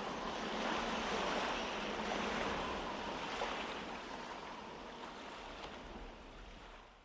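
Ocean surf sound effect closing out a song: a steady wash of waves that fades out gradually and ends near the close. It is heard as played back through in-ear monitors.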